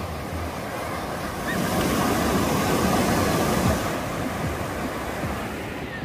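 Ocean surf: waves breaking and washing up the beach, swelling about a second and a half in and easing off again about four seconds in.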